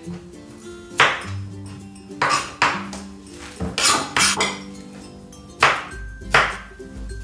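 Chef's knife cutting green bell pepper on a plastic cutting board: about nine sharp, irregularly spaced strikes of the blade against the board. Background music plays underneath.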